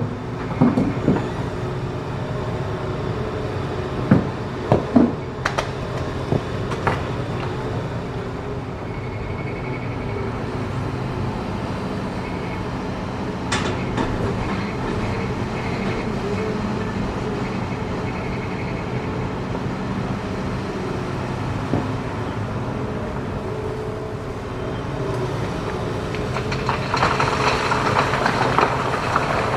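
Hitachi ZX210 hydraulic excavator working in hard rock: the diesel engine runs steadily under load while the bucket clanks against stone several times in the first half. The sound grows louder and rougher near the end, with the scraping and grinding of rock.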